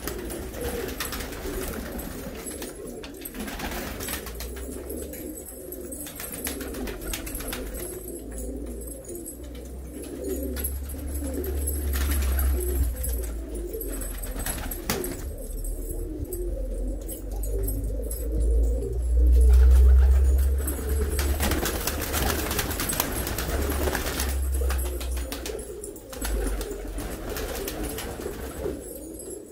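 A flock of Pakistani high-flyer pigeons cooing continuously, with a deep low rumble that swells twice, loudest about two-thirds of the way through. Occasional wing flaps near the end as some birds take off.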